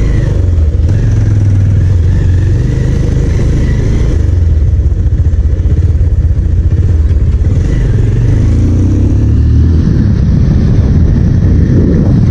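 Motorcycle engine running as the bike pulls away and is ridden along a street, a steady loud low rumble with changes in engine pitch.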